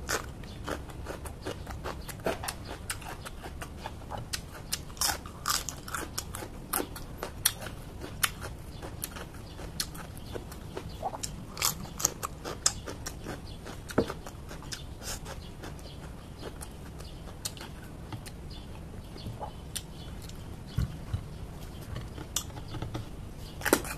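Close-up chewing and biting of raw, crisp vegetables: many sharp, irregular crunches all through, over a low steady hum.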